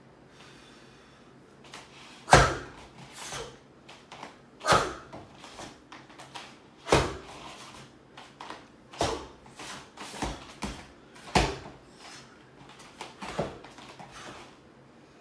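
Sudden thuds and snaps from forceful tai chi movements: barefoot stamps on foam mats and the snap of a cotton uniform, about seven hits a couple of seconds apart, the first the loudest, with softer cloth rustles between.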